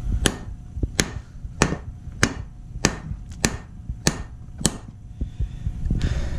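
Wooden mallet driving a wooden wedge into the top of an axe handle seated in the head's eye, spreading the handle to lock the head on: about eight sharp knocks some two thirds of a second apart, stopping about five seconds in.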